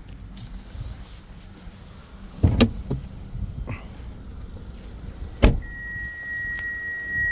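Car door of a Hyundai Kona being handled: two heavy thumps about three seconds apart, the second a sharp slam, then a steady high beep lasting about two seconds.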